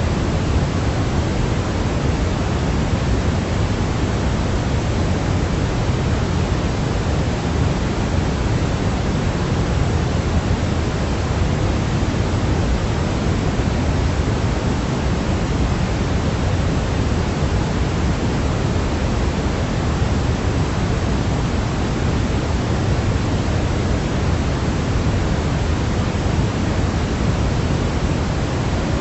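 Steady white-noise sleep track: an even, unchanging hiss, heavier in the low end than the high.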